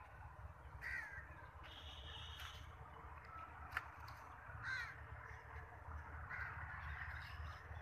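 Crows cawing outdoors, several calls a second or two apart, over a steady low rumble, with one sharp click near the middle.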